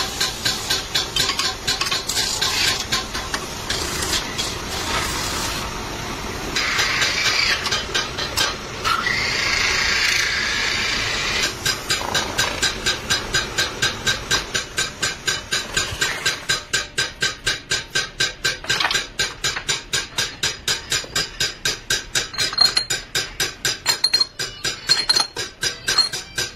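Copper pot blank turning on a metal-spinning lathe while hand-held tools scrape and press against the spinning copper: a hissing scrape that pulses in a quick, even rhythm, steadiest and loudest between about six and twelve seconds in.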